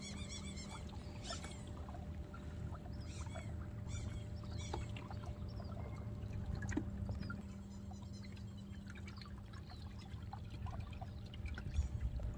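Water trickling and lapping at a fishing kayak's hull, over a steady low hum, with scattered short high bird chirps.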